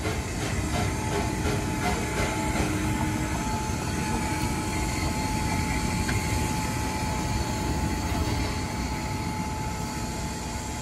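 Danish DSB Litra Q 350 steam locomotive moving slowly while running round its train: a steady rumble with a thin whine, and a quick run of clicks that dies away in the first couple of seconds.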